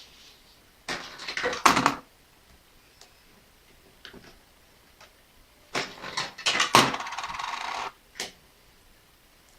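Coins dropping into a homemade Arduino coin sorter and clattering through it in two bursts, about a second in and again near six seconds, the second ending in about a second of steady noise, with a few single clicks between.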